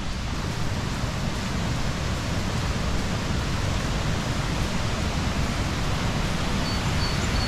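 Steady rushing roar of a large cascading waterfall, the 167-foot Chittenango Falls, growing slightly louder.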